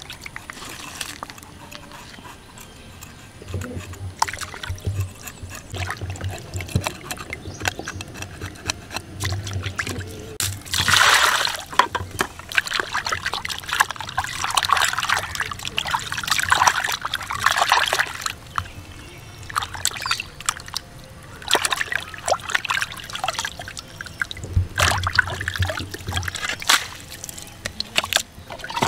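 Tilapia being washed and rubbed clean by hand in a bowl of water: water sloshing, splashing and trickling in irregular bursts, busiest through the middle.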